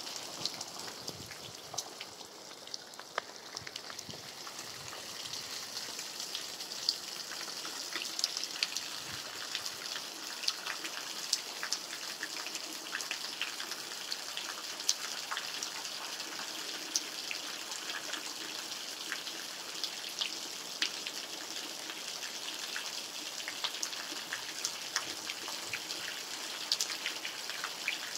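Steady rain falling, a constant hiss with many individual drops ticking sharply at random.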